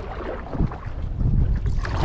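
Canoe paddle dipping and pulling through lake water, a couple of splashy strokes, over a low rumble of wind on the microphone.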